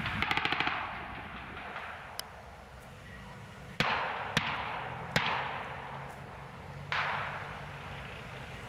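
A short, rapid burst of machine-gun fire, then single gunshots over the next several seconds, each trailing a long echo.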